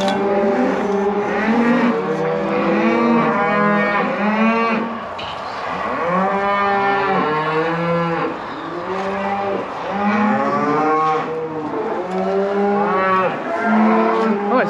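Beef cattle bellowing over one another, many overlapping drawn-out calls rising and falling in pitch: cows calling out after being separated from their calves.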